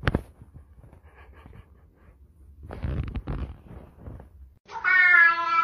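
A sharp knock, then some low rustling and handling noise, and about a second before the end a domestic cat starts a loud, long meow.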